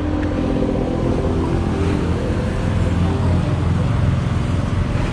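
Road traffic: a motor vehicle's engine running close by with a steady drone, its pitch shifting slightly about three seconds in.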